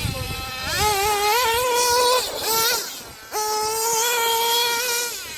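Hobao Hyper 7 TQ RC buggy's .21 three-port nitro engine revving at a high, buzzing pitch. It climbs in steps and drops a little past two seconds. It comes back hard about a second later, holds high, and falls away near the end.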